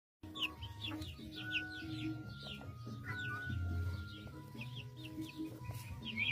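Partridges giving many short, falling chirps, several a second, over background music.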